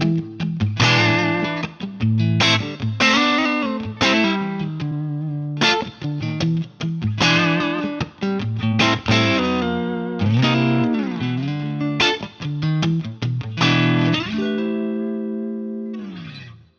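Clean electric guitar playing a riff of plucked single notes and chords, with notes gliding in pitch about ten seconds in. It ends on a held chord that rings and fades out.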